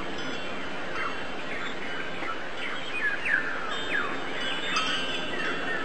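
Many small birds chirping at once, a busy run of short, overlapping falling chirps over a steady background hiss.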